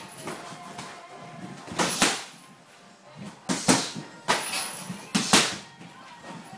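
Kickboxing sparring: padded gloves and shin guards landing on guards and bodies, about five short, irregular thuds, two of them close together near the end.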